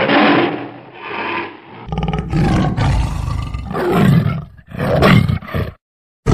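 Tiger roaring and growling several times in a row, each call about a second long, with a brief break near the end.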